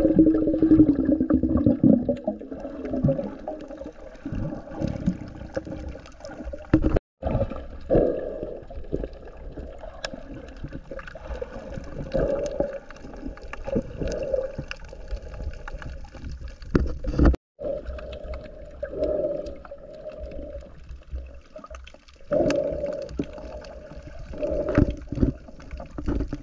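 Water moving and gurgling as heard underwater through a camera's waterproof housing, muffled, with many dull knocks and thuds from handling. It drops out briefly twice.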